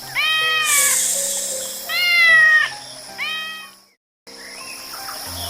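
A cat meowing three times, each a falling, drawn-out meow, the second the loudest, over background music, with a brief break in all sound about four seconds in.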